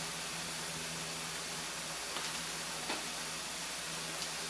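Ground pork sizzling in a frying pan: a steady hiss with a faint low hum under it and a few light clicks.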